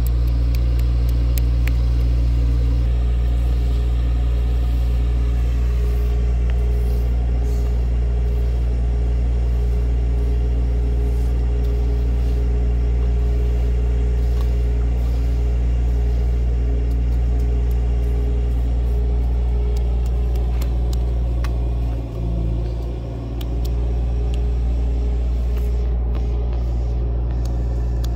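Steady low rumble and hum of a running machine or engine, with faint scattered clicks.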